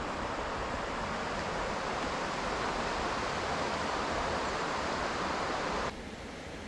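Steady rushing water, as of a creek or small waterfall, that drops suddenly to a quieter hiss near the end.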